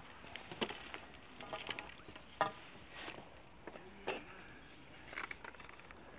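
Hands handling fishing line and terminal tackle close to the microphone: an irregular scatter of light clicks and rustles, the sharpest about two and a half seconds in.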